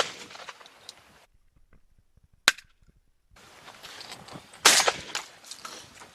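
Two gunshots from a bird hunt: a short sharp crack about two and a half seconds in, then a louder shot with a trailing tail about two seconds later.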